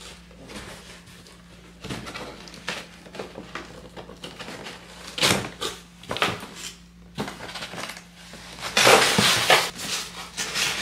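A large cardboard shipping box being opened by hand: a box cutter slicing through packing tape and cardboard flaps being pried up and folded back, with scattered knocks and scrapes. A louder stretch of cardboard rustling and scraping about nine seconds in.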